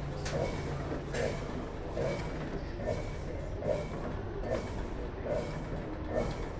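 Consul Facilite 11 kg top-loading washing machine agitating a load of work clothes in water: a regular swish of water and clothes a little more than once a second over a steady low motor hum.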